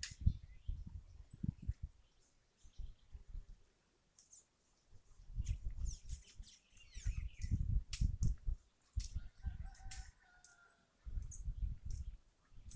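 A rooster crows once in the distance, about nine seconds in, while small birds chirp. Bursts of low rumble come and go.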